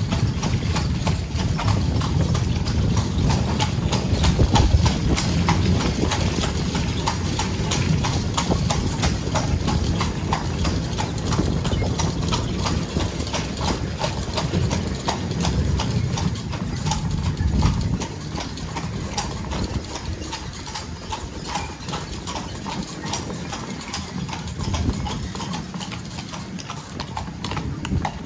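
Horse hooves clip-clopping at a walk on cobblestones, with the low rumble of the horse-drawn carriage's wheels rolling over the cobbles. The rumble lessens a little past halfway while the hoofbeats go on.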